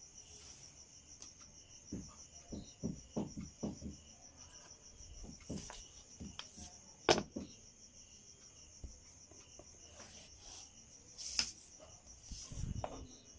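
A steady, high, pulsing cricket trill, with scattered soft knocks and scrapes as a wooden ruler is moved and chalk lines are drawn on cotton cloth. There are two sharper clicks, about seven and eleven seconds in.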